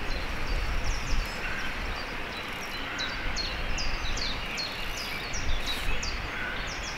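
A songbird calling in short, high, down-slurred notes, about two a second, over steady outdoor background noise with a low rumble.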